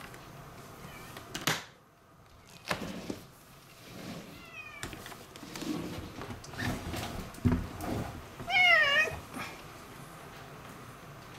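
Domestic cat meowing: a short call about four seconds in, then a louder, longer wavering meow about three-quarters of the way through. Several short knocks and rustles come between the calls.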